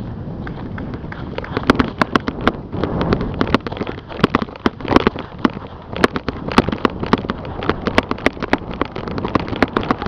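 A rapid, irregular run of sharp clicks and snaps, several a second, from close-range airsoft play, over rustling and wind on the microphone.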